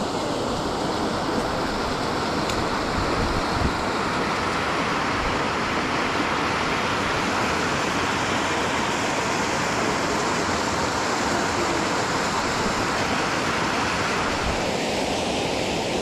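Mountain stream rushing steadily, a continuous even wash of running water.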